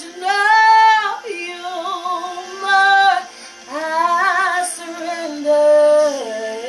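A woman singing a slow worship song over a recorded song, in drawn-out phrases of about a second with wavering held notes.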